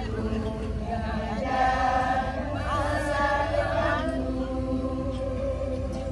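A group of people singing together in chorus, holding long notes, with a steady low wind rumble on the microphone.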